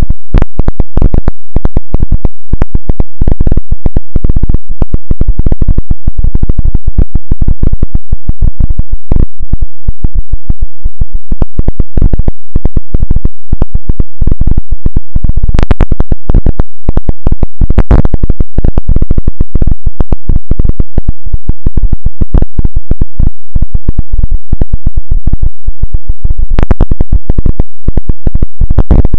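Loud, heavily clipped crackling noise made of dense, irregular clicks, with a few sharper bursts past the middle and near the end.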